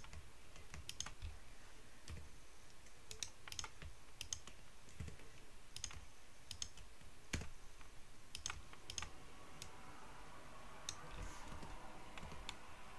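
Faint, irregular clicks of a computer mouse and keyboard as shortcuts are pressed and the mouse is clicked, a click every second or so.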